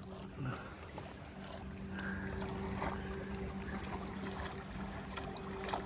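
Kayak on the water: soft paddle dips and water lapping against the hull, a few small splashes, over a faint steady hum.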